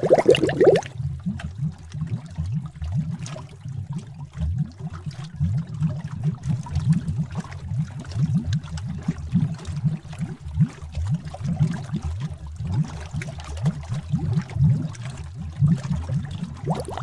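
Bubbling cauldron sound effect: thick liquid bubbling and gurgling in a steady stream of low pops. A higher, brighter layer of bubbling stops about a second in and comes back near the end.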